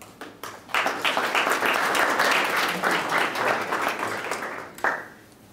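Audience applauding: the clapping starts just under a second in and dies away near the end.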